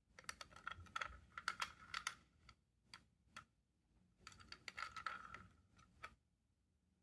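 A plastic Plarail toy train car being handled and turned over in the fingers: quick runs of small clicks and rubbing in two spells, from just after the start to about two and a half seconds and again from about four to six seconds.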